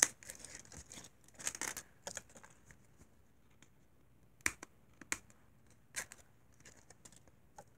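Fingernails picking and scratching at the wrapper of an L.O.L. Surprise ball, trying to lift its tear-strip, with short crinkles of the wrapper and a few sharp clicks in the second half.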